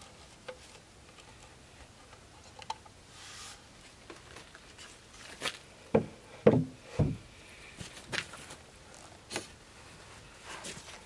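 Wooden knocks and thumps as a railing post is handled and set against the edge of a wooden deck, with three heavier thumps close together about six to seven seconds in.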